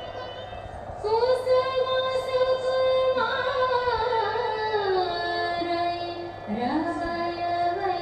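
Indian classical vocal music: a single voice holds long notes and slides smoothly between pitches, coming in about a second in, with a short dip and an upward glide near the end.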